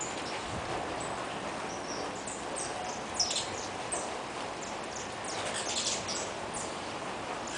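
Saffron finches chirping at a feeder: many short, high chirps from several birds, busiest about three seconds in and again around five and a half to six seconds, over a steady background hiss.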